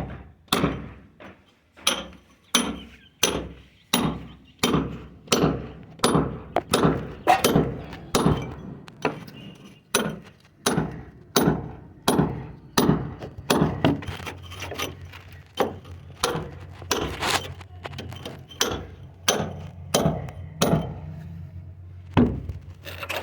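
Hammer blows struck steadily by hand, about two a second, each with a short ring, stopping near the end.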